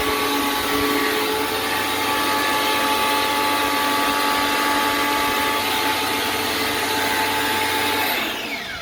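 Tolsen 1400 W brush-motor electric pressure washer running steadily under load, a motor whine over a loud hiss. It cuts out about eight seconds in, the whine falling in pitch as the motor spins down.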